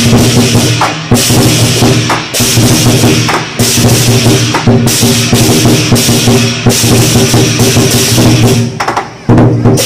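Lion dance percussion: a big drum beating steadily under continuous crashing cymbals. The playing breaks off briefly about nine seconds in, then resumes.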